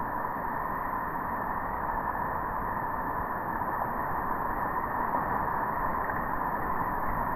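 Rushing river whitewater through rapids, a steady muffled rush of water with no distinct events.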